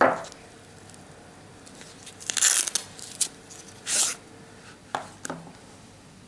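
Handling noise from a flashlight being picked up and handled: a short sharp sound at the start, two brief noisy scrapes about two and a half and four seconds in, and a few light clicks.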